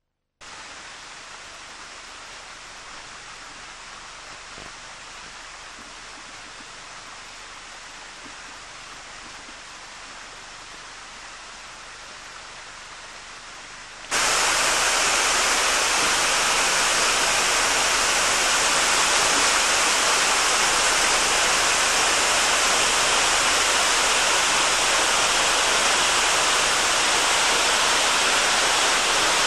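Water pouring over a river weir, a steady rushing noise; about halfway through it suddenly becomes much louder.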